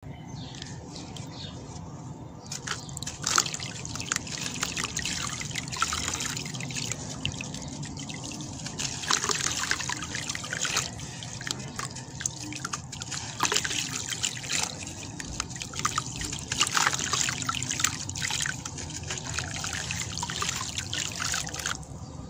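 Dry sand-and-cement disc crumbled by hand into a tub of water: gritty crunching and crackling with many sharp clicks as chunks and crumbs break off, splash and trickle into the water. It starts about two seconds in and stops just before the end.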